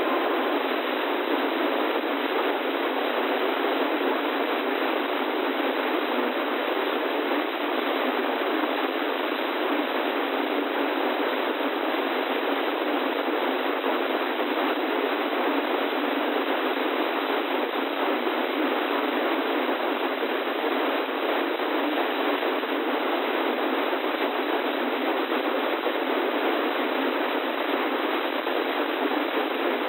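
Steady hiss of radio static from a weather radio receiver tuned to no clear signal, a dull band of noise with no voice or tones in it.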